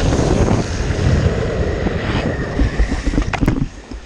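Wind rushing over the microphone and longboard wheels rolling on asphalt at speed. About three seconds in there are a few sharp knocks and scrapes as the rider falls, and then the rolling noise stops.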